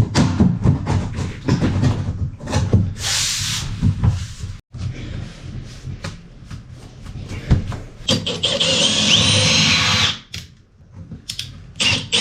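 A handheld power tool runs for about two seconds near the end, its motor whine dipping in pitch under load. Before it come a run of knocks and thumps.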